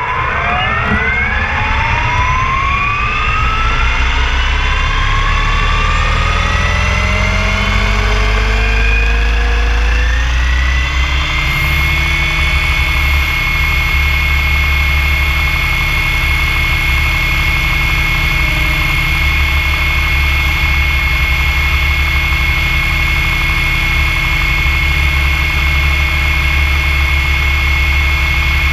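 SAB Goblin 570 electric RC helicopter spooling up, heard from a GoPro mounted on the helicopter. The motor and drive whine rises steadily in pitch for about the first ten seconds as the rotor comes up to speed, then holds at a steady high whine over a low rotor rumble as it flies.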